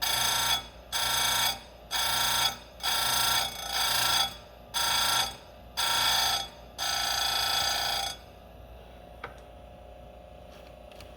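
Square chain grinder's wheel grinding the cutters of steel saw chain in about eight short strokes, roughly one a second, each a bright, ringing grind; the last stroke is longer. About eight seconds in the grinding stops and only the grinder motor's faint low hum remains.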